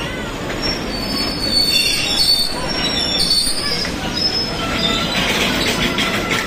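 Goods train of tank wagons rolling slowly past, steel wheels on the rails giving a steady rumble with thin high squeals in the first half. From about five seconds in, a regular clacking of wheels over rail joints takes over.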